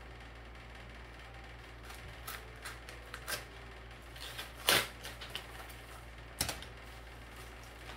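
A paper mailer envelope being cut and torn open with a box cutter: a string of short crackles, rips and clicks that begins about two seconds in, the loudest just past the middle.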